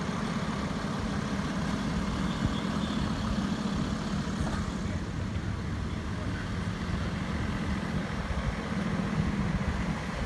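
Truck engine idling close by, a steady low hum, with road traffic behind it.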